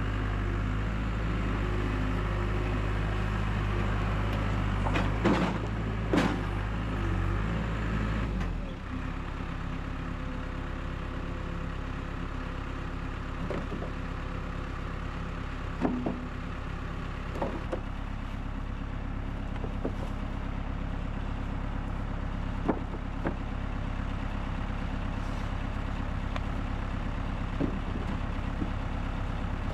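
Three-cylinder Yanmar diesel engine of a C25R crawler dumper running steadily. About eight or nine seconds in, its note changes and it runs a little quieter. A few sharp knocks are scattered over the running.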